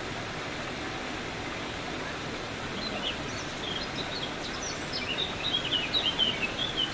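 Steady rushing background noise by the otter pond, with a run of quick, high chirps starting about three seconds in and growing louder near the end.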